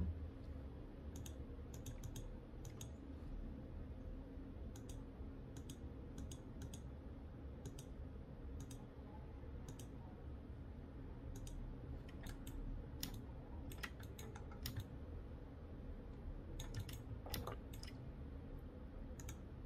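Faint, scattered clicks of a computer mouse and keyboard, with a few quick runs of clicks later on, over a low steady hum.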